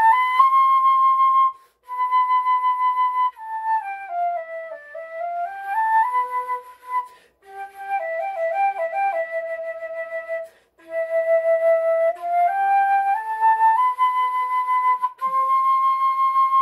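Flute playing a melody in phrases, with short breaths between them. Around the middle it steps down and back up, then plays a quick fluttering figure, and near the end it holds a long high note.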